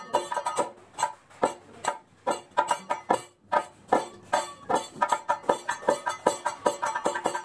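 Kathakali percussion accompaniment: a quick run of struck beats with a ringing, metallic pitch, thinning out with short breaks in the first half, then running on in fast even strokes.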